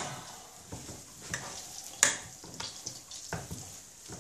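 Raw chicken pieces being squeezed and mixed by hand with coarse salt on a wooden chopping board: soft wet squelching with a few sharper smacks, the loudest about two seconds in. Under it, a faint steady sizzle from pans frying on the stove.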